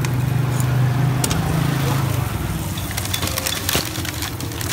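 Battered banana fritters sizzling and crackling in a wok of hot frying oil, the crackle getting busier about halfway through. A steady low hum sits under the first two seconds.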